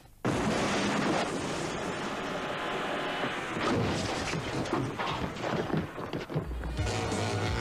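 A film soundtrack: music mixed with a dense run of booms and crashing impacts. It starts after a brief cut to near silence at the very start.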